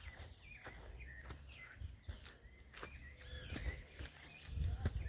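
Birds chirping in short, scattered calls, over irregular soft clicks and footsteps.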